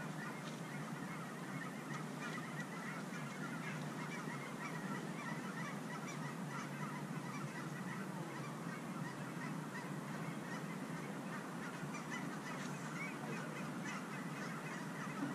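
A flock of geese honking continuously, many short calls overlapping, fairly faint and steady.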